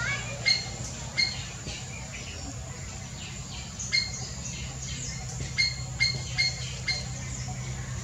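White-browed fantail giving short, sharp call notes, about eight of them spaced irregularly, with a quicker run of four about five and a half to seven seconds in.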